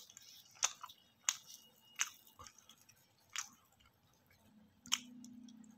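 A person eating roti with aloo gobhi curry by hand: faint chewing with about six sharp mouth smacks spaced roughly a second apart, and a low steady hum near the end.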